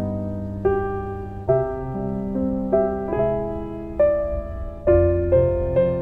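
Slow background piano music, a new note or chord struck roughly every second over held lower notes.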